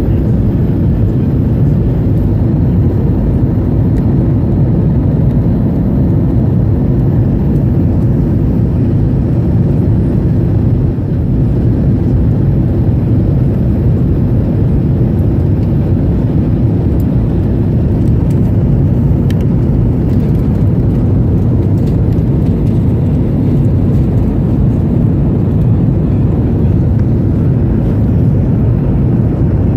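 Steady, low-pitched rumble of an airliner in flight, holding an even level throughout.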